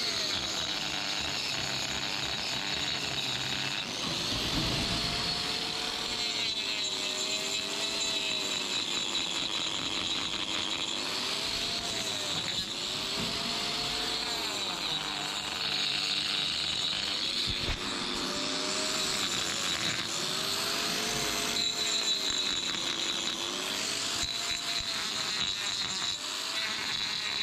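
Handheld angle grinder with a trimming disc running continuously, grinding down the horn of a cow's hoof, with a steady high whine.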